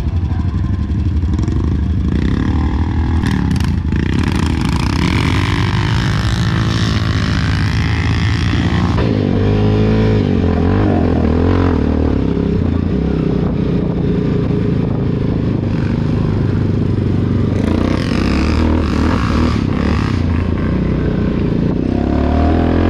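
Honda Rancher 420 ATV's single-cylinder four-stroke engine running under throttle as the quad rides off along a sandy dirt trail, its pitch climbing over the first several seconds and dropping about nine seconds in as the automatic transmission shifts, then pulling steadily.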